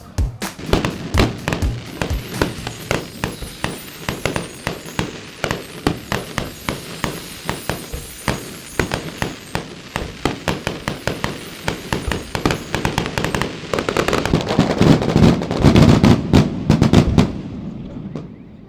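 Fireworks display: a rapid series of sharp bangs and crackles from aerial fireworks, many a second, building into a dense, loud barrage near the end before dying down.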